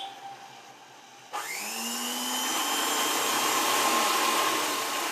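Electric sewing machine motor starting about a second and a half in, its whine rising quickly to speed, then running steadily while stitching and cutting off about five seconds in.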